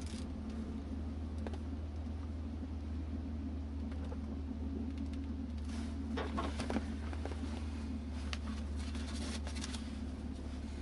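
BMW E36 328i's 2.8-litre straight-six, fitted with a Remus cat-back exhaust, idling steadily as heard from inside the cabin while the car creeps to a stop. A few light clicks and rustles come in around six seconds in and again near the nine-second mark.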